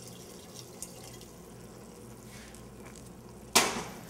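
Wine trickling from a glass bottle into the risotto pots, faint, with a few light drips. About three and a half seconds in, a sudden loud noise fades away within half a second.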